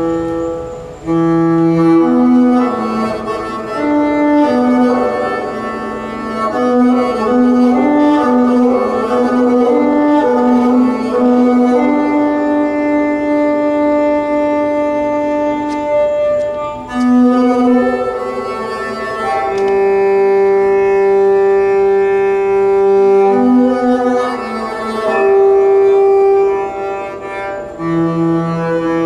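Earth harp, its very long strings bowed by the player's gloved hands, sounding long held notes that change pitch every second or two, with several notes ringing together.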